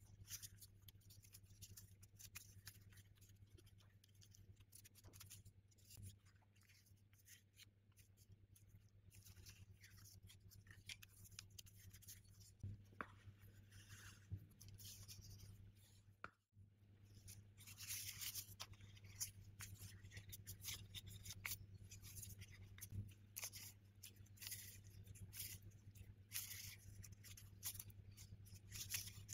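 Faint crinkling and rustling of thin disposable plastic gloves as hands weave and shape pastry dough, in many short scratchy ticks that grow busier about halfway through, over a low steady hum.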